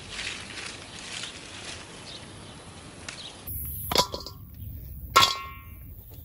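Leaves of bean plants rustling as beans are picked, then a stainless steel mixing bowl clanging twice, about four and five seconds in, each stroke ringing briefly.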